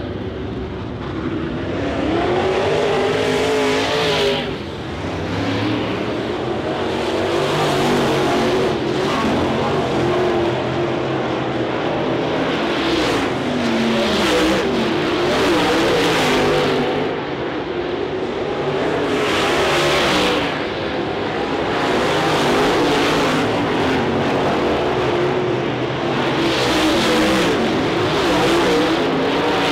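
Dirt-track race cars' V8 engines running hard around the oval during hot laps, their pitch repeatedly rising and falling as they accelerate and lift.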